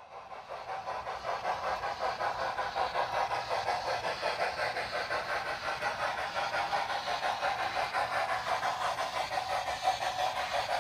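On3 narrow-gauge model steam locomotive running with its train over a model truss bridge, giving a steady steam chuff with hiss, about three to four beats a second. It fades in at the start.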